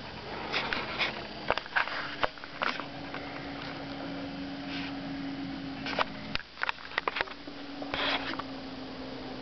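Handling noise from a handheld camera being moved about and set down on a bed: scattered sharp clicks, knocks and rustles, with a clump of them a little after six seconds in. A faint steady hum runs underneath.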